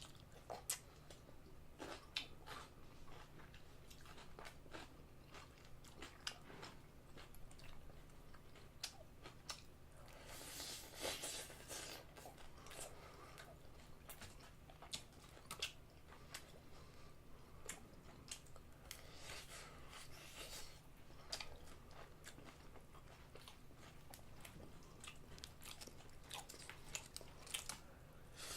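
Close-miked chewing and biting of seasoned fried chicken: quiet crunching bites and wet mouth clicks, with denser stretches of crunching about ten seconds in and again near twenty seconds.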